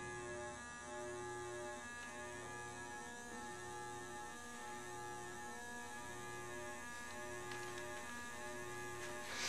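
Steady, electric-sounding droning hum made of several held tones, with a low tone pulsing on and off about once a second; a brief noisy rustle comes in near the end.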